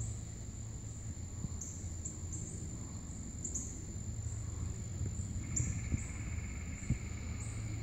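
Insects trilling steadily in a high pitch, each trill swelling up anew every half second to a second. A second, lower pulsing trill joins about five and a half seconds in, over a steady low hum.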